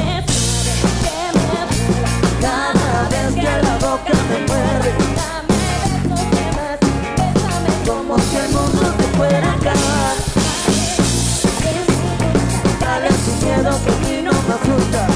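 Live band music with a drum kit heard up close, played in a steady beat: kick drum, snare and rimshot strikes and cymbals over bass and melody.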